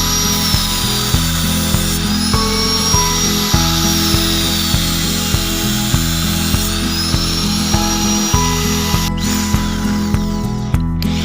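Background music with a steady beat, about two beats a second, and a repeating high sweeping synth figure.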